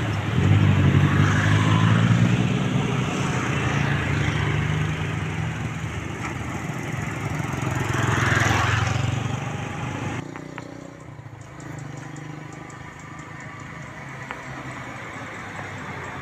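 Motor vehicle engines running close by, with one vehicle passing about eight seconds in. About ten seconds in, the sound drops abruptly to quieter, more distant traffic.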